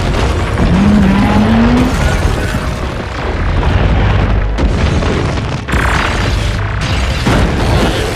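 Film battle sound effects for a giant robot and monster fight: heavy booms and crashes of impacts and collapsing buildings, with a low tone rising in pitch about a second in. Music plays underneath.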